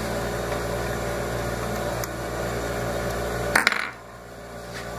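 Metal parts clinking against the steel feed plate as a clamp is fitted to a Juki LK-1900B industrial bartack sewing machine, over a steady machine hum. One sharp metallic clank about three and a half seconds in, after which the hum drops away.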